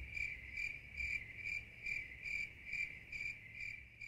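Cricket chirping steadily, one even chirp repeated about twice a second, over a faint low hum.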